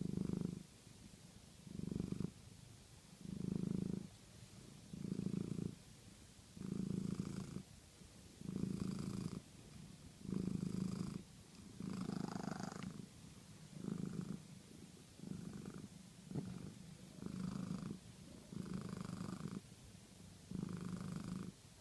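A cat purring loudly in a steady rhythm, each purr lasting under a second and coming about once every second and a half with its breathing, while the cat enjoys being handled.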